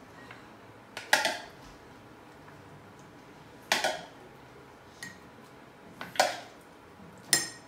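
Metal spoon scraping and clinking against a mixing bowl as chopped fruit is scooped out into a glass: four sharp clinks, each with a short ring, a second or two apart.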